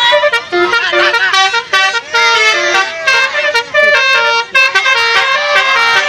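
Basuri telolet bus horn, a multi-tone musical horn, playing a tune of short notes that change every fraction of a second.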